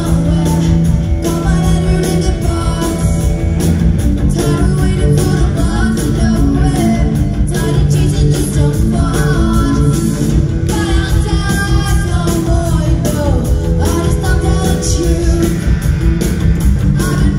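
Live rock band playing loud: electric guitars, bass guitar, drums and keyboards.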